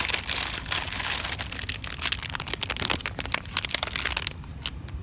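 Plastic packaging crinkling and crackling as it is handled close up, a dense run of small crackles that thins out about four seconds in.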